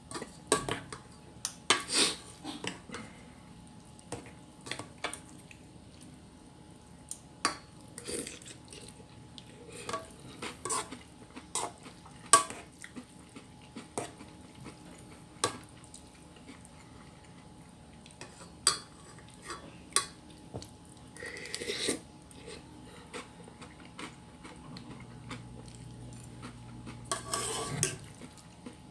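Cutlery clinking and scraping against dishes during a meal: irregular light clicks and knocks, with a couple of longer scrapes.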